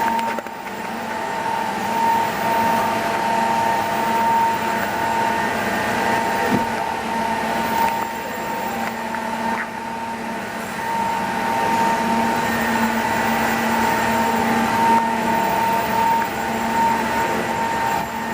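Automatic edge banding machine running: a steady machine whine and hum with several held tones. A single brief knock about six and a half seconds in.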